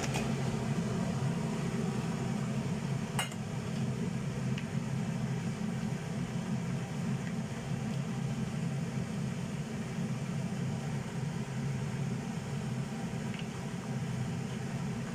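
Steady low rumble of water boiling in a pot of vegetables, with a few light clicks of a utensil against the pot.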